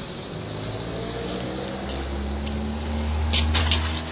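A vehicle engine rising in pitch as it speeds up. A heavy low rumble builds from about halfway, with a few brief crackles near the end.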